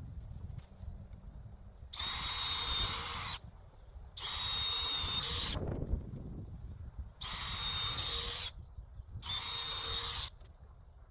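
Power drill running in four bursts of about a second or so each, with a steady high-pitched motor whine.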